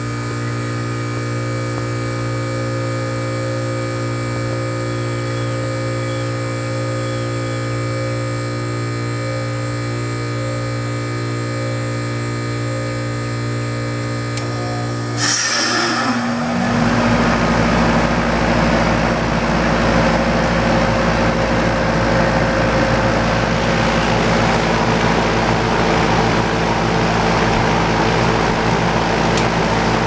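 American Standard packaged heat pump ending a defrost cycle. The compressor hums steadily, then about halfway through the reversing valve shifts with a sudden loud whoosh of refrigerant. The outdoor fan then starts, and the unit runs on with a steady rush of fan air over the compressor hum.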